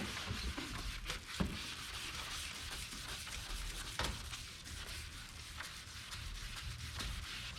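Wet sanding of a plastic headlight lens: an abrasive sanding pad scrubbing steadily over the wet plastic, with a few sharp clicks along the way.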